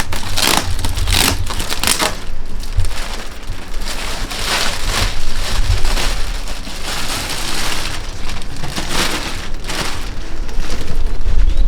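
Packing material being torn off and crumpled by hand, in irregular crackling rustles, as a new mountain bike is unwrapped from its box.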